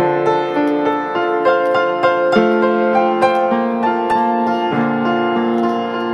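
Background piano music with held notes that change about once a second.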